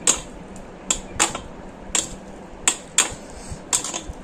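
Utensils clicking against a bowl while instant noodles are mixed, in irregular sharp clicks about two a second.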